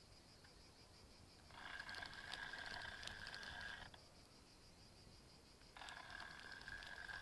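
Spinning reel on a feeder rod being wound in two spells of about two seconds each, a faint steady whirr, as a hooked fish is brought in.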